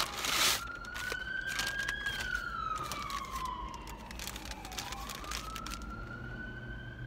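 An emergency vehicle's wail siren rising and falling slowly: it climbs for a couple of seconds, sinks for about three, then climbs again. Paper crinkles loudly at the start and fades out within the first few seconds.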